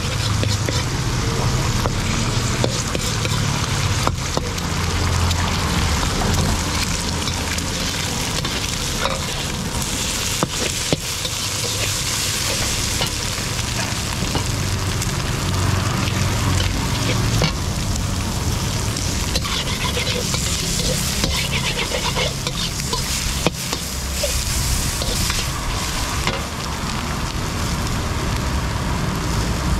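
Food sizzling in a hot wok as egg and pork are stir-fried, with a metal wok ladle scraping and clinking against the pan throughout.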